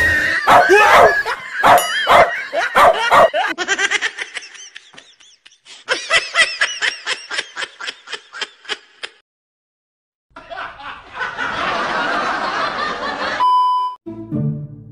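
Laughter in quick, rhythmic bursts, loud for the first few seconds and fading, then a second run of giggling about six seconds in. A rushing noise follows after a brief gap, and a short steady beep sounds near the end.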